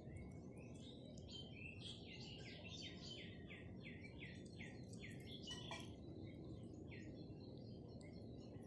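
A bird singing a fast run of short, repeated chirping notes, about three a second, which stops about seven seconds in, over a steady low background hum.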